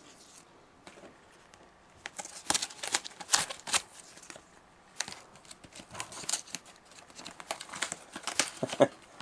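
Cardboard card pack being torn open along its perforated strip, with paper crackling and rustling. The run of short, sharp tearing crackles starts about two seconds in.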